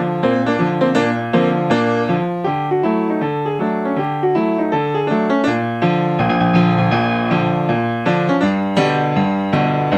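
Instrumental stretch of an indie rock song led by a keyboard, piano-like notes struck in a steady rhythm over a repeating bass line; the keyboard part thickens about six seconds in.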